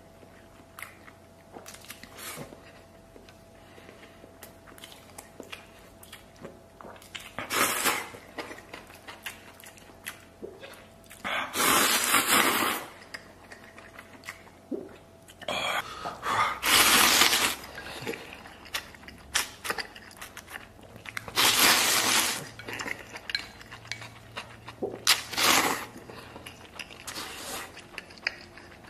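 Someone eating tomato beef instant noodles: five loud slurps of about a second each, spread across the half-minute, with quiet chewing and small clicks between them.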